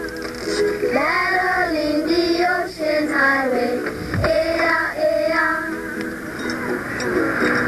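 Song with high singing voices over instrumental backing; the sung phrases give way to the accompaniment about six seconds in.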